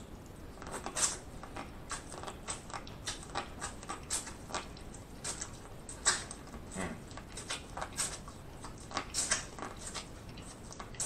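An ear of seasoned corn on the cob being bitten and chewed: an irregular run of small crisp crunches and clicks as kernels come off the cob, the sharpest about a second in, about six seconds in and around nine seconds in.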